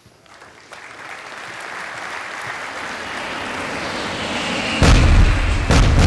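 Closing logo sound effect: a rush of noise swelling steadily for about four seconds, then two deep booms about a second apart as the logo hits.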